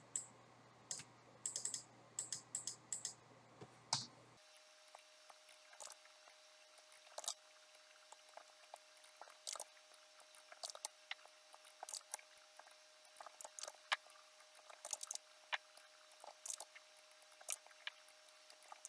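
Faint, irregular clicks of a computer mouse and keyboard, some in quick runs, as labels in a drawing program are selected and edited.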